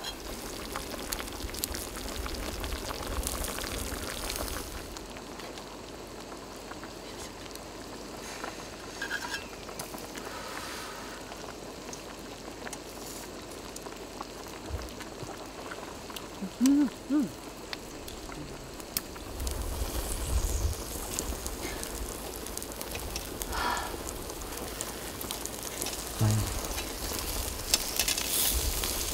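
Stew bubbling in a pot and pork slices sizzling on a wire grill over the campfire, a steady cooking hiss with scattered light clicks of utensils. About halfway through, two short pitched vocal sounds are the loudest thing.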